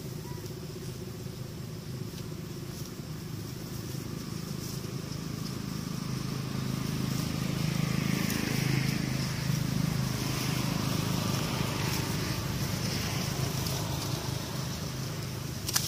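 A motor vehicle's engine running nearby: a steady low hum that swells louder around the middle, as if passing, and then eases off.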